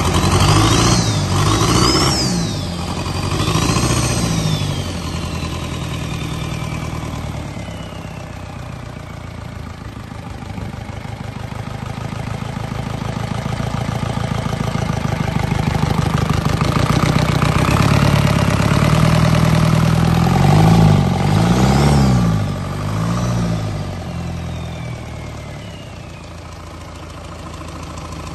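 A 1999 Isuzu 4HE1 four-cylinder turbodiesel truck engine running on a test stand. It is blipped to higher revs a few times at the start, idles, climbs slowly in speed, then takes three more quick revs about three-quarters through before settling back to idle. A high whistle rises and falls with each rev.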